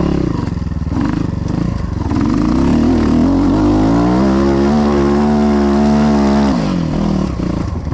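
Enduro dirt bike engine revving up and held at high revs for a few seconds, then the throttle is shut near the end and the revs fall away.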